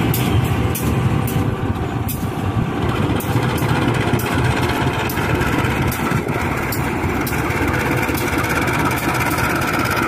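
KAI CC 204 diesel-electric shunting locomotive's engine running with a steady low rumble as the locomotive rolls slowly away along the track.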